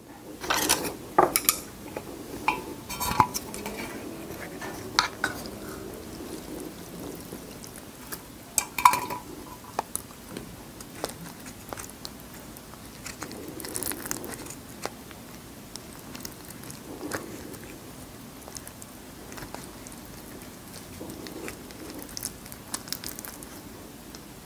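Chopsticks and a metal plate clinking against an aluminium pot, several sharp clinks with a short ring in the first ten seconds, then softer, scattered handling knocks.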